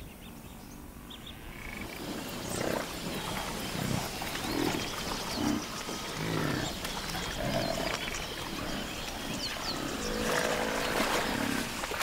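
A herd of Cape buffalo grunting and lowing in many short, low calls one after another, starting about two seconds in, with one longer call near the end. Birds chirp high above the calls.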